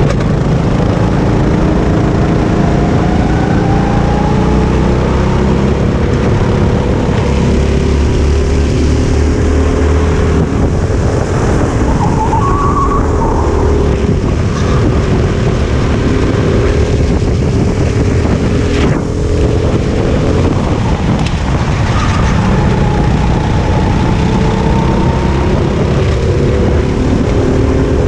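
Onboard sound of a Sodi RT8 rental go-kart's engine running at racing speed, its pitch rising and falling gently as the kart accelerates and slows through the corners.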